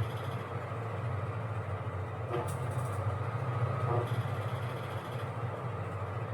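Washing machine running: a steady low motor hum with a constant wash of noise over it, and a faint recurring swish every couple of seconds as the drum turns.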